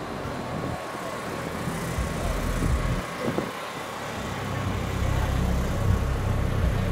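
Vehicle engine noise with wind buffeting the microphone, getting somewhat louder over the last couple of seconds.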